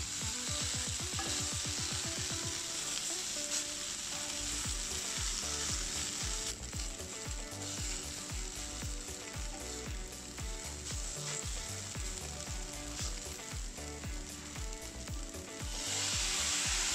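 Tofu pieces frying in oil in a nonstick pan, a steady sizzle, with tongs turning them now and then. Near the end a thick sauce is poured in and the sizzle gets louder.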